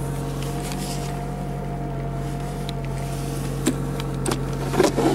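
Car engine idling steadily, heard from inside the cabin. A few light clicks and knocks come in the last second or so.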